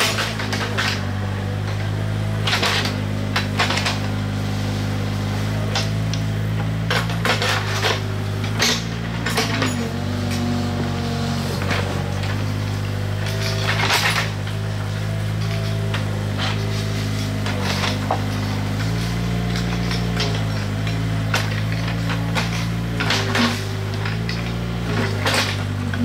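Small tracked excavator's diesel engine running, its note shifting a few times, under irregular sharp metal clanks and knocks of steel bars and tools working rail and ballast stone, the loudest about halfway through.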